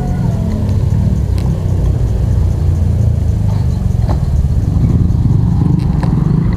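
Motor vehicle engine running close by, a low rumble that grows slightly louder partway through, with a few faint clicks over it.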